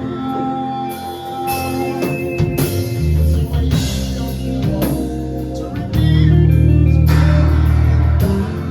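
Music with guitar and drum kit playing, the bass getting heavier for about two seconds past the middle.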